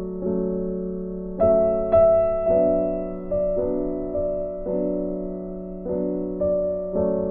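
Background piano music: slow, sustained chords struck every half second to a second, with a louder chord about a second and a half in.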